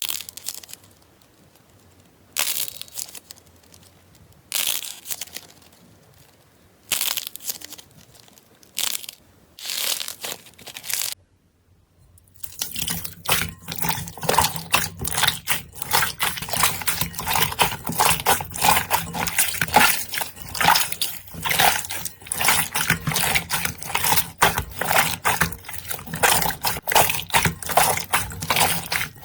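Slime being squeezed and worked by hand, making wet crackling and squishing sounds. For the first dozen seconds it comes in separate squeezes about every two seconds, then, after a brief gap, as dense continuous crackling.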